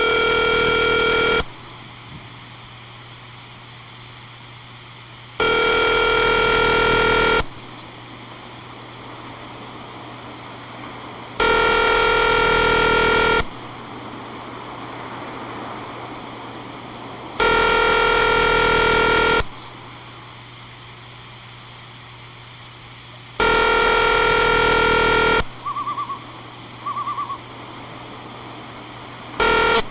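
Telephone ringback tone heard over the phone line of an outgoing call: five rings of about two seconds each, six seconds apart, as the line rings unanswered. Two short beeps follow near the end.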